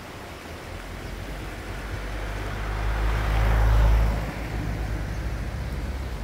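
A car passing by on the road, its tyre and engine noise swelling to a peak about three and a half seconds in and then fading.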